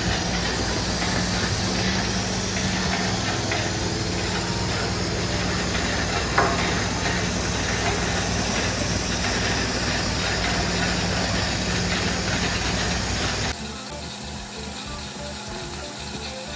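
Propane hissing steadily from the open spit gauge (fixed liquid level gauge) of a residential tank while it is being filled, over the low hum of the delivery truck's pump engine. About 13 seconds in, the hiss cuts off abruptly to a quieter background.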